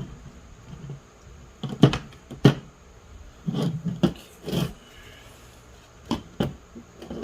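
Parts of an automatic-transmission ratchet shifter clicking and knocking as they are handled and fitted together: two sharp clicks about two seconds in, a cluster of knocks around four seconds, and two more clicks near the end.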